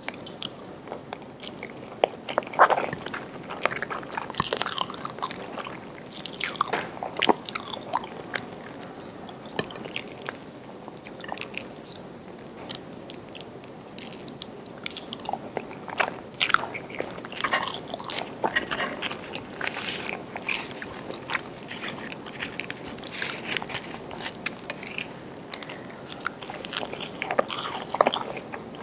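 Close-miked chewing and biting of food: a steady run of irregular wet mouth clicks and crunches.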